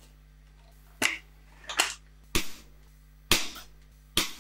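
SMK XS20 .177 air rifle firing five sharp shots in quick succession, about one a second.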